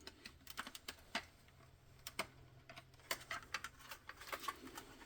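Irregular small clicks and taps as the parts of a car's centre brake light unit are handled and pressed back into place, over a faint steady low hum.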